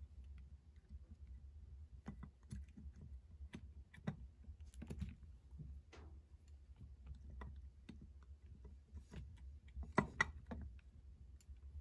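Faint, irregular small clicks and taps of metal Holley 4000 carburetor parts being handled and seated by hand as the secondary tubes and fuel bowl cover are fitted, with a louder cluster of clicks near the end. A low steady hum lies underneath.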